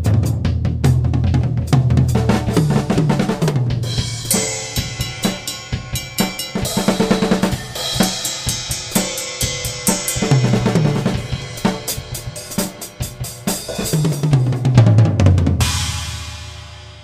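Mapex Saturn walnut/birch drum kit played with bass drum, snare and Zildjian Z3 cymbals: several fills running down the toms from high to low, a cymbal-heavy stretch in the middle, and a final crash near the end that rings out and fades.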